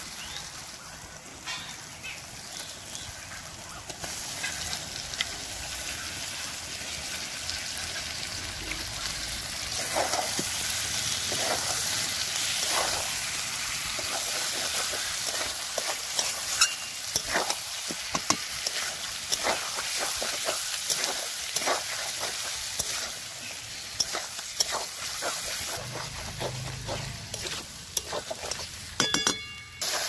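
Whole quails sizzling in hot spiced oil in a metal wok, with a spatula stirring and scraping them against the pan. The frying hiss grows louder about a third of the way in, and the scraping strokes come thick and irregular from then on.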